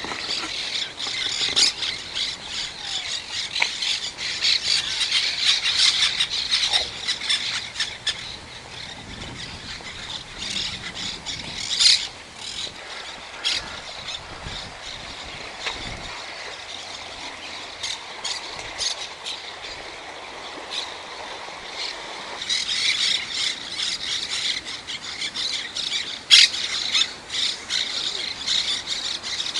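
A flock of birds calling together in a dense, high-pitched chatter of many short calls, louder in the first several seconds and again near the end.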